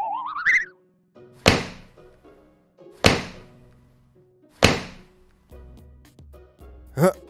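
Cartoon sound effects for stomping footsteps: a wobbly rising boing at the start, then three heavy thunks about a second and a half apart, and a short rising boing near the end.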